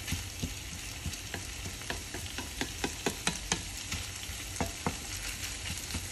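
Saltfish sautéing with onion, tomato and peppers in a non-stick frying pan, sizzling steadily, while a wooden spoon stirs it and knocks against the pan, the knocks coming quickest in the middle.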